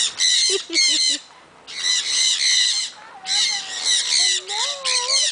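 A group of parrots screeching, shrill harsh calls in quick repeated runs with short pauses between them. A fainter, lower warbling glide is heard near the end.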